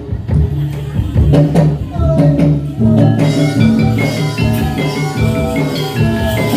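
Live Javanese gamelan music: drum strokes at first, then from about three seconds in, metallophones join with a dense run of ringing pitched notes over a steady low pulse.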